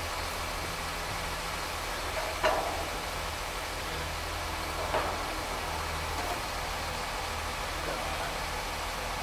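Pile-driving rig's engine running steadily, with two sharp knocks about two and a half seconds apart.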